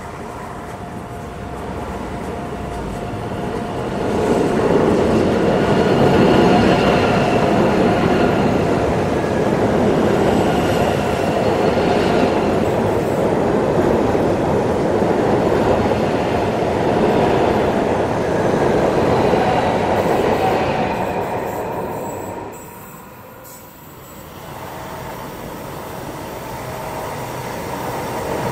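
ICE high-speed train running past close by over a steel truss railway bridge: a loud, dense rumble of wheels on rail with thin whining tones above it. About two-thirds of the way through the sound drops away sharply, then the rumble of another approaching train grows louder.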